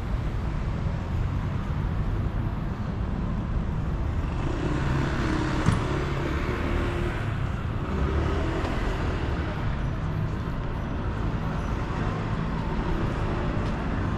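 Road traffic: a steady rumble of passing cars, swelling as a vehicle goes by about four to nine seconds in.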